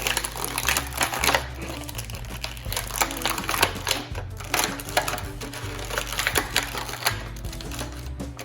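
Small plastic toy parts clicking, snapping and rattling irregularly as a Transformers BotBots figure is twisted and folded by hand.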